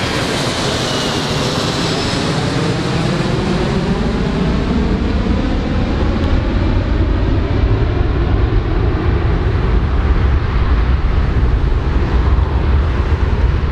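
Four-engine jet airliner flying away: a steady jet roar, with an engine whine falling in pitch over the first few seconds and a deep rumble growing stronger in the second half.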